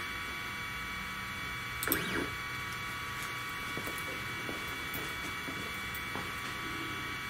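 Stepper motors of a 3018 desktop CNC router making one short jog move about two seconds in, a brief whine that rises and falls in pitch, over a steady electrical hum.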